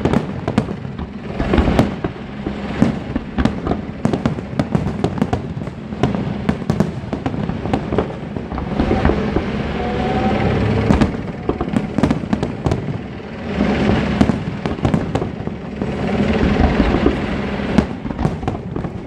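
Fireworks display: a dense, irregular run of bangs and bursts from aerial shells going off in quick succession.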